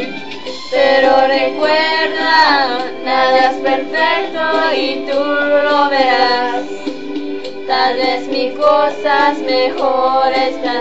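A song with a female voice singing over steady instrumental backing; the voice comes in about a second in.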